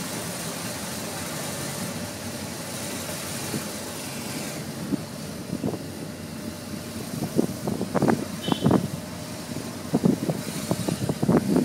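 Car driving slowly, with steady engine and road noise heard from inside the car. In the second half it is broken by a run of short, irregular knocks and bumps.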